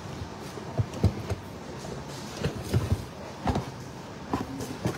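Handling noise around a cardboard box of banknote bundles: about ten scattered short knocks and bumps.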